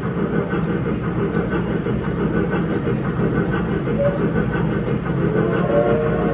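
Electric mall train running steadily, a continuous rattling rumble. A few faint held tones come in near the end.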